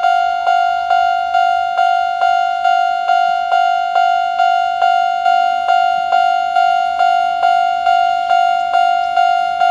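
Japanese railway level-crossing alarm of the older standard electronic type ringing its 'kan-kan' tone, a struck bell-like note repeating steadily a little over twice a second, each strike fading before the next. The alarm is ringing at its normal tempo, no longer the overly fast rate it had before.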